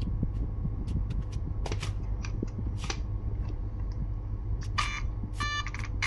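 Light clicks and taps of plastic parts being handled over a steady low hum, then about five seconds in a few short electronic beeps as the newly fitted RC truck ESC powers up.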